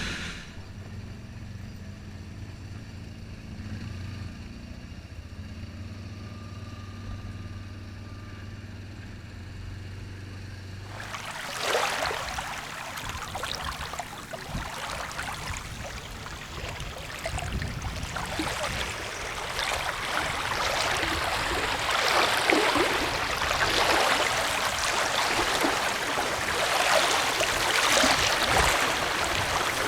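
An ATV engine running steadily for about the first ten seconds. It then gives way abruptly to the steady rushing of a flowing stream, which grows a little louder toward the end.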